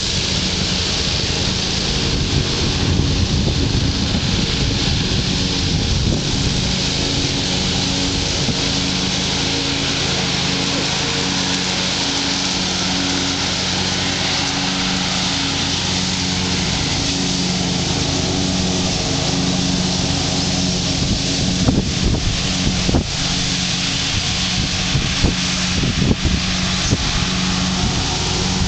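Steady outdoor noise: a constant hiss with a low mechanical hum underneath and wind buffeting the microphone. A few knocks come near the end.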